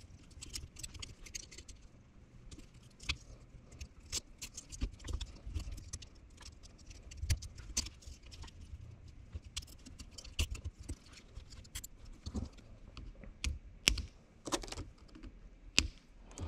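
Irregular small clicks and rattles of hands handling plastic wire connectors, wiring and zip ties on a headlight housing.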